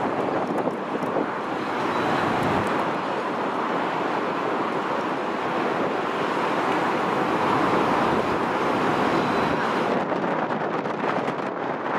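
Boeing 777's twin jet engines at takeoff thrust during the takeoff roll and lift-off: a steady, rushing jet noise that swells slightly in the second half. Wind buffets the microphone throughout.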